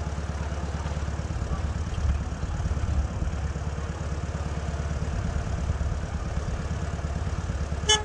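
Land Rover-based road train's engine idling steadily, a low even rumble, with a short horn toot right at the end.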